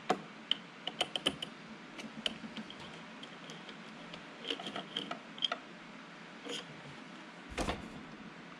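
Light clicks and ticks of a hand screwdriver backing a screw out of the plastic end housing of a Konica Minolta 1070 fuser unit, with one louder knock about seven and a half seconds in.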